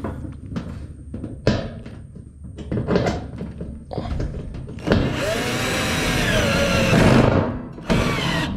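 A cordless drill drives a screw into a corrugated metal sheet. It runs for about two and a half seconds with a wavering whine as the screw bites, stops, then gives a short second burst. Before that, a series of sharp knocks and thunks come from the metal sheet as it is pressed and handled.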